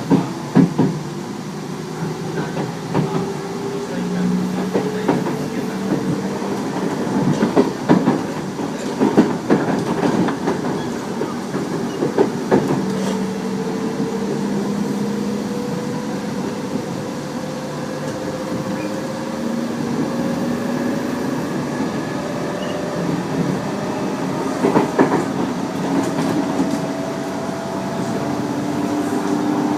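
Tobu 30000 series electric train accelerating, its traction motor and inverter whine climbing slowly and steadily in pitch. The uploader believes this set has permanent-magnet synchronous motors. Wheels click over rail joints in clusters, about a third of the way in and again near the end.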